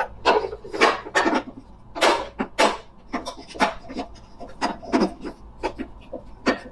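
Slatted wooden table top being set onto a steel Stanley lunch box and pushed into place: irregular wooden clacks and knocks mixed with rubbing and scraping of the slats against the metal.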